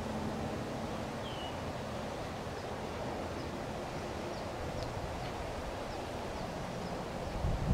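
Steady outdoor background noise with faint, brief high chirps scattered through it, and wind starting to buffet the microphone near the end.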